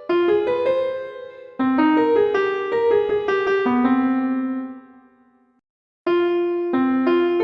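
Nokia 3310 ringtone melody in a piano-like tone, a tune of single ringing notes. The phrase fades out about five and a half seconds in, and after a half-second gap the tune starts again.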